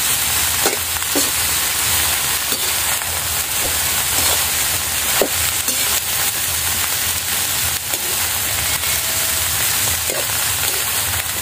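Fiddlehead fern greens sizzling in hot oil as they are stir-fried in a metal wok, with the spatula scraping and knocking against the pan every second or so.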